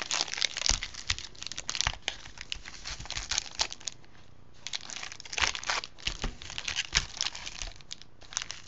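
Foil-wrapped Bowman Chrome baseball card packs crinkling as they are handled by hand, a run of quick crackles with a short lull about four seconds in.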